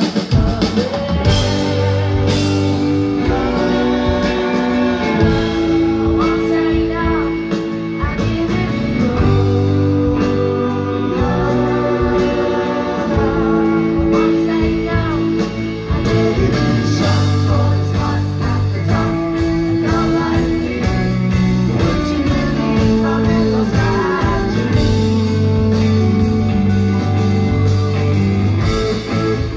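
Rock band playing a guitar-led passage, with held chords over a steady bass line and singing at times.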